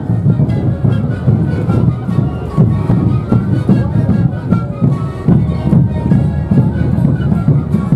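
Sikuri band playing: many zampoñas (Andean panpipes) sounding a traditional melody together, with bombo bass drums and snare drums keeping a steady beat.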